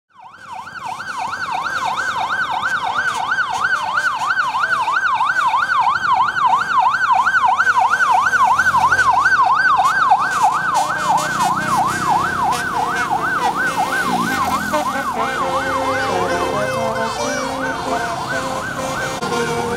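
A siren sound in a fast yelp, its pitch swinging rapidly up and down about five times a second, starting suddenly at full strength. In the second half other sustained notes and clicks come in beneath it.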